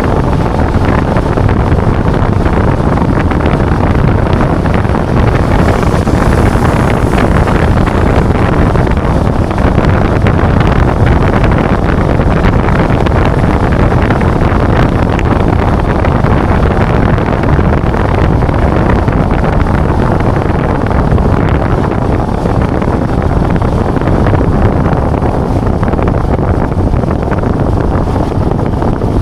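Loud, steady wind rushing over the microphone of a moving motorcycle.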